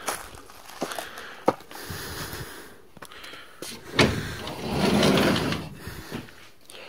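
A few light clicks, then about four seconds in a sliding glass door is pushed open and rolls along its track for over a second.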